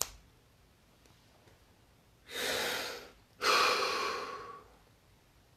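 A man breathing: a short breath in about two seconds in, then a louder, longer breath out through the mouth that fades away, taken as he lets go of muscle tension.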